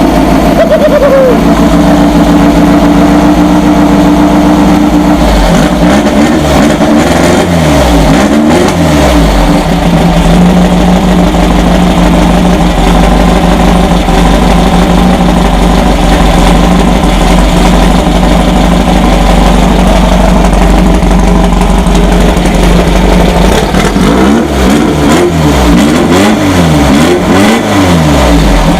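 Air-cooled 1835 cc Volkswagen flat-four engine running loudly, revved up and down several times about six seconds in and again near the end.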